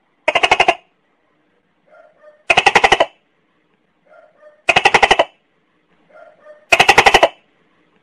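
Tokay gecko calling: four loud calls about two seconds apart. Each is a faint short note followed by a half-second rattle of rapid pulses.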